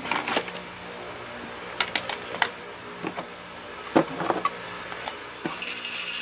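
Scattered light clicks and knocks of hard plastic as a cordless drill and its accessories are handled in a moulded plastic carrying case, over a faint steady hum.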